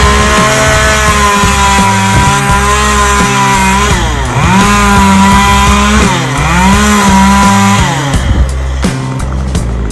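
Stihl MS 193 T top-handle two-stroke chainsaw running at high revs, its pitch sagging and recovering twice, then dropping away about eight seconds in. Background music with a beat plays underneath.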